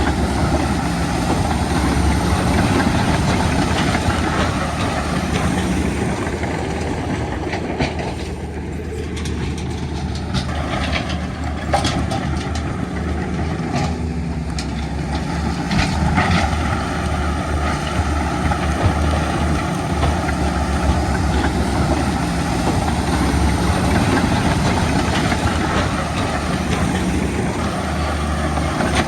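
Heavy diesel earthmoving machinery running steadily, with a low engine drone and a few sharp knocks around the middle.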